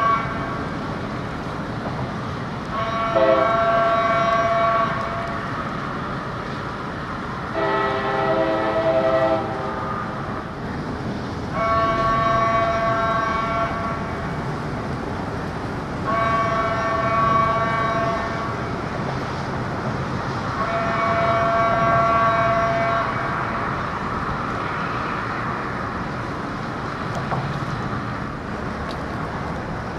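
Horns of an approaching diesel locomotive and the railroad bridge's marine warning system sounding together: five long blasts, each about two seconds, repeating every four to five seconds. The first two blasts are fuller, with lower notes added.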